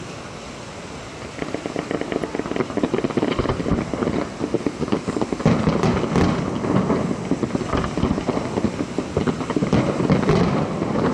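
Fireworks display: a dense, rapid crackle of many small bursts from shells and fountains. It starts about a second in and gets louder about halfway through.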